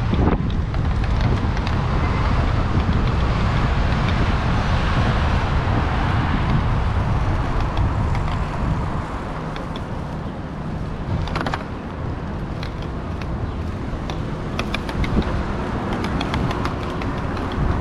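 Wind noise on the microphone of a moving bicycle, with street traffic beneath it, easing somewhat about halfway through. Scattered light clicks come in the second half.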